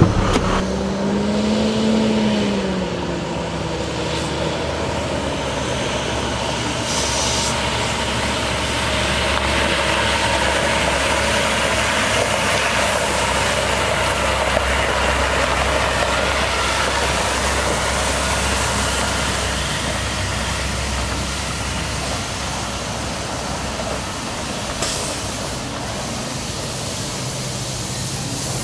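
International 4300 water truck's MaxxForce DT diesel engine running steadily in low gear with the PTO water pump engaged, its front spray heads hissing water onto the ground.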